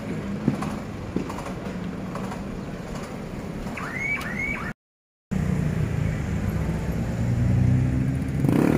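Road traffic: vehicle engines running, with two short arched chirps about four seconds in. After a brief dropout, a louder, steady engine hum takes over.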